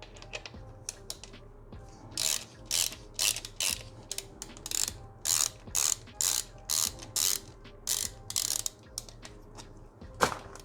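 Ratchet wrench clicking in a run of short rasps as it is swung back and forth to tighten a bolt on the engine guards. A single sharp, loud click comes near the end.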